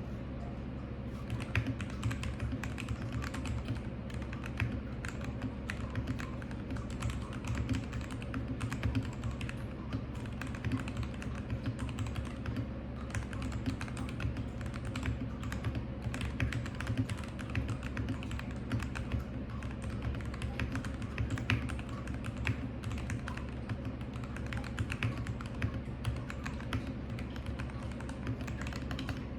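Continuous typing on a Royal Kludge RK G68 mechanical keyboard with lubed Kailh Box Red linear switches and cherry-profile keycaps: a fast, uneven stream of keystroke clacks over a steady low hum.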